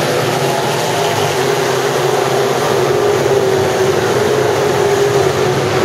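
A field of Sport Modified dirt-track race cars running together at speed, their engines blending into a steady, loud drone whose pitch wavers slightly.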